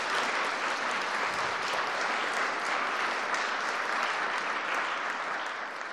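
Audience applauding at the close of a lecture, steady clapping that begins to fade near the end.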